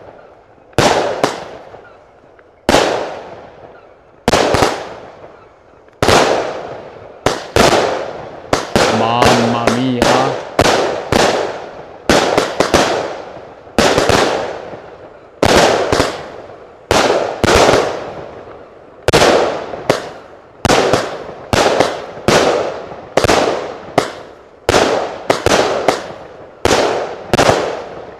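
Allevi 48-shot, 20 mm pressed-shell firework cake ("Salici al tramonto") firing shot after shot. It gives a steady run of sharp reports, about one to two a second, each fading out over about a second, with some shots coming in quick pairs.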